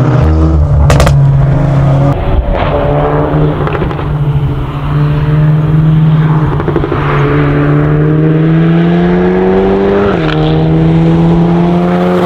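Volkswagen Golf 8 R's turbocharged 2.0-litre four-cylinder held at steady revs on launch control, with a few sharp cracks about a second in. It then launches and pulls hard, revs climbing steadily, dropping at an upshift about ten seconds in and climbing again.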